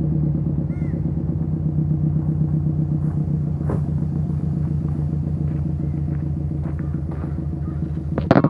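2008 Subaru WRX turbocharged flat-four idling steadily through a Cobb downpipe and muffler-deleted exhaust, a deep even rumble. A loud short clunk sounds just before the end.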